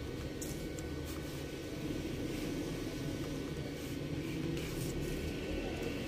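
Steady low background noise with a few faint, scattered clicks of laptop keys and touchpad buttons.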